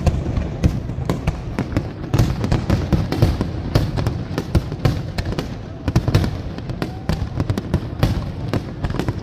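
Fireworks display: a dense, continuous run of bangs and crackles over a low rumble.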